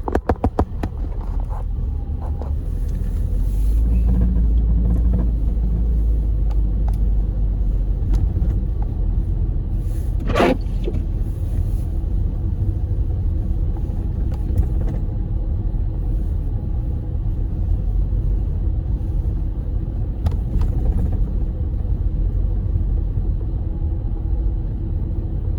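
A car's low, steady rumble of engine and tyres on a snowy road, heard from inside the cabin. A quick run of clicks comes right at the start.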